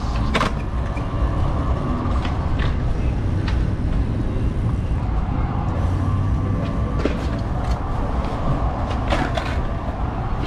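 Steady rumble of city street traffic, heavy vehicles such as buses or trucks running nearby, with a few scattered clicks and knocks.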